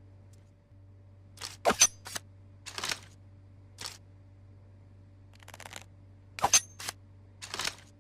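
Tanto dagger handled twice in the same pattern: a sharp metallic click with a brief high ring, then about a second later a short sliding swish of the blade. A quieter rattle sits between the two pairs. A faint steady hum runs underneath.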